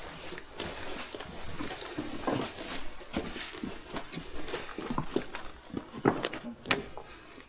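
Footsteps and scrambling over loose rock underground: irregular crunches, scrapes and knocks, several a second.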